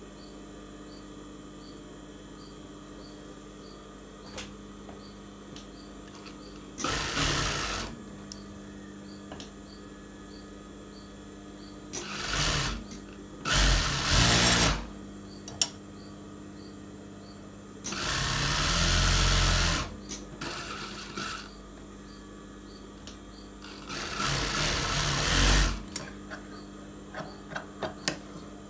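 Industrial sewing machine running in about five short bursts of one to two seconds each as fabric is stitched, with a steady hum underneath between the runs.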